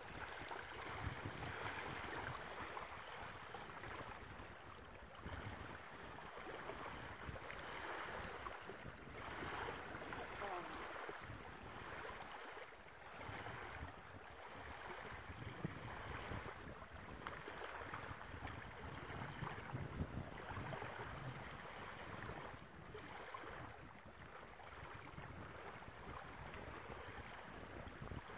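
Small waves lapping on a sandy shore, with wind gusting on the microphone in a low rumble that swells and fades.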